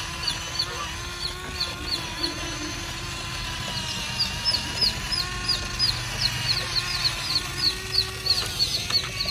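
Birds chirping in quick, repeated short high notes that grow busier about halfway through, over a steady low hum.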